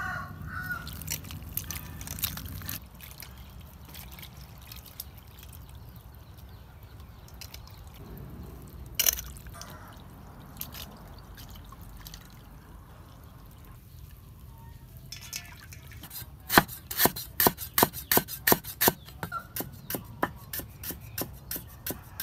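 Water dripping and sloshing as enoki mushrooms are rinsed and lifted out of a steel bowl of water, with one sharp knock partway through. In the last third a cleaver chops quickly on a round wooden chopping board, several sharp strikes a second, louder than the water.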